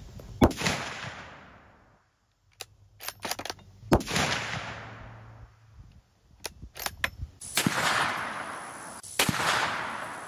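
450 Bushmaster bolt-action rifle fired twice, about three and a half seconds apart, each shot ringing out and fading, with a quick run of metallic clicks from the bolt being worked after each shot. About nine seconds in, another gunshot sounds against a different background.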